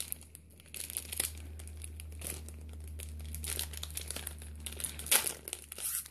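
Shiny trading-card pack wrapper crinkling and tearing as it is pulled open by hand, in irregular crackles with the loudest bursts near the end.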